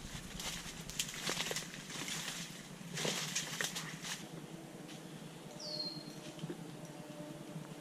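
Leaves, stems and branches rustling and swishing as someone pushes through dense brush and tall vegetation, in a string of brushing bursts over the first four seconds, then quieter. One short falling chirp a little past halfway.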